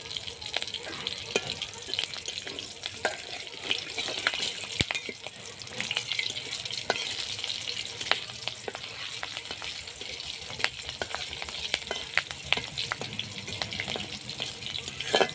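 Green chillies and nigella seeds frying in hot oil for a tempering: a steady sizzle with frequent, irregular sharp pops.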